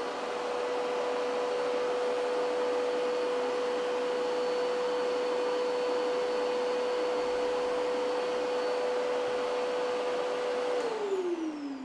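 Mosquito backpack vacuum cleaner running: a steady motor whine over rushing airflow, measuring about 76 dB at the wearer's ear. About a second before the end it is switched off, and the whine falls in pitch as the motor winds down.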